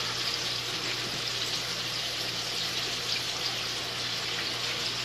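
Breaded Salisbury steak patties sizzling steadily in hot fat in a frying pan.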